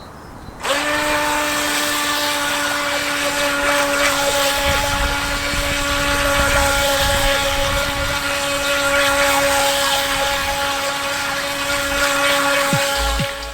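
JJRC RC speedboat's electric motor running at a steady high whine, starting about a second in and holding its pitch, with a rushing hiss beneath it.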